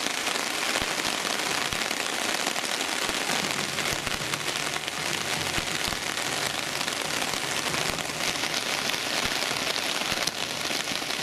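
Heavy storm rain falling on a tarp shelter overhead: a dense, steady patter of drops.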